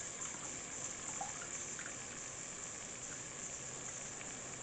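Faint trickle of liquid pouring from a tilted steel pot through a mesh strainer into a bowl, with a few faint ticks.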